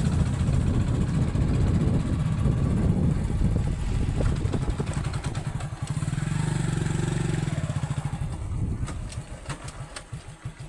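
Motorcycle engine running while riding, with wind buffeting the microphone. Near the end it slows and drops to a steady idle with evenly spaced low pulses.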